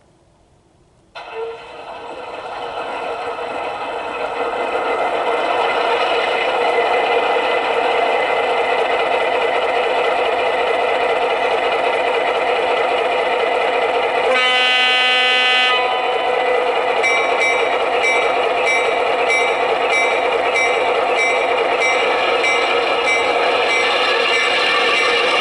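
Onboard sound system of a USA Trains NW2 G-scale model diesel switcher. Its diesel engine sound starts up about a second in and builds to a steady run. A horn blast comes about halfway through, and near the end a bell rings about twice a second.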